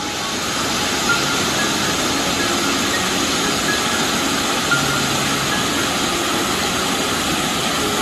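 Mountain stream rushing over small granite cascades into a pool: a loud, steady rush of water.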